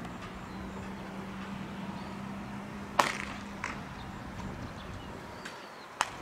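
A baseball smacks into leather catcher's gloves during a game of catch. There are two sharp pops, one about three seconds in and one near the end, with a lighter click just after the first.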